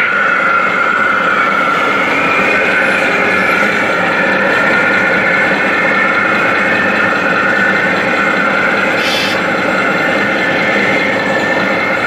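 Radio-controlled scale construction machines running: a steady whine of electric drive motors and gearing that wavers slightly in pitch, over a constant noisy background. A brief hiss about nine seconds in.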